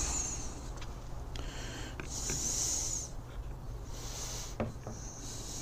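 Hands working on small-engine parts during reassembly: rubbing and scraping in several short spells, the longest about two seconds in, with a few light clicks.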